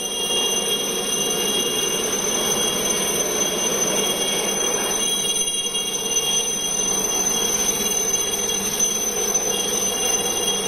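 Indian Navy Chetak (Alouette III) helicopter hovering low: the turbine engine and rotor run steadily, with a high steady whine over a rushing noise.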